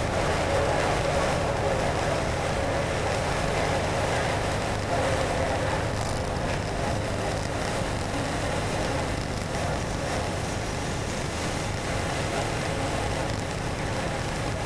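Motorcycle being ridden at a steady speed: a steady mix of engine and road noise, with a brief click about six seconds in.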